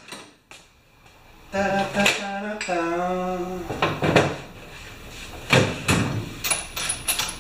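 Metal hand tools clinking and knocking against each other and a tool chest drawer, in a run of separate sharp clacks, with a man humming two low notes for about two seconds near the start.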